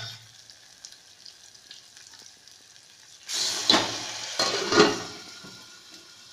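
Cooked toor dal hitting a hot garlic tempering (tadka) in an aluminium pot: a faint hiss, then a loud burst of sizzling about three seconds in, with a few clanks as an aluminium lid goes on. The sizzle then fades under the lid.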